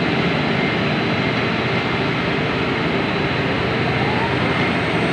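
Steady, loud drone of heavy machinery engines: a container truck and the container crane running, with a faint short rising whine a little after three seconds in.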